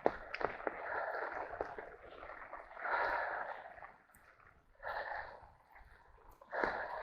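A person's heavy breathing while hiking, in long rasping breaths about every two seconds, with scattered short clicks.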